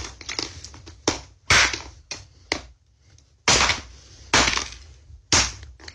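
Mobile phones being smashed on a wooden floor: a series of hard, cracking blows with breaking glass, the heaviest about once a second in the second half.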